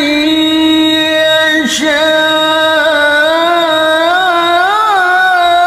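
A male voice reciting the Quran in melodic tilawah style, holding long drawn-out notes with slow ornamental turns in pitch. There is a short breath about two seconds in.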